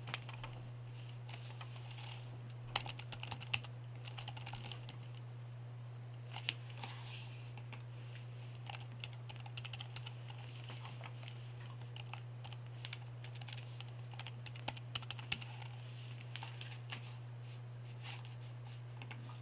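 Typing on a computer keyboard: irregular key clicks in short runs, over a steady low hum.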